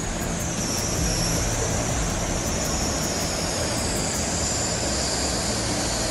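Heavy tropical-storm rain pouring down and floodwater rushing over a flooded pavement, a steady, even rush of noise.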